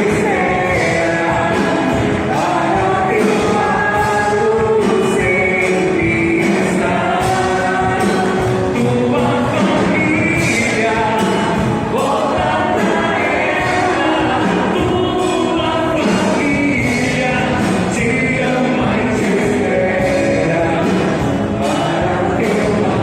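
Christian worship song: sung vocals over a band with a steady beat.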